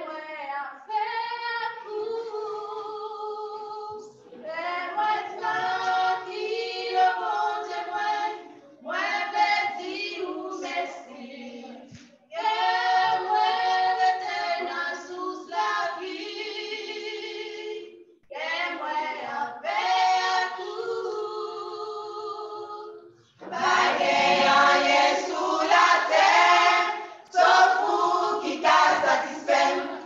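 A group of voices singing a Christian worship song together, phrase by phrase with short breaks between the lines. About 23 seconds in the singing gets louder and fuller.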